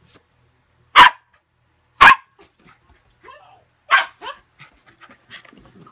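Husky puppy barking: three sharp barks about a second apart, with softer yips between and after them.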